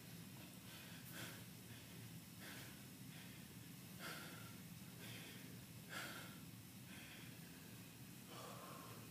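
Faint, deep, controlled breathing of a fighter recovering from exertion, drawing air in through the nose and blowing it out through the mouth. There are about five slow breaths, each every one and a half to two seconds.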